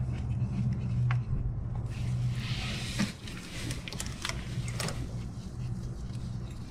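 Scattered light metallic clicks and taps as small valve-cover nuts and parts are handled on the engine, over a steady low hum. A brief rustling hiss comes about two to three seconds in.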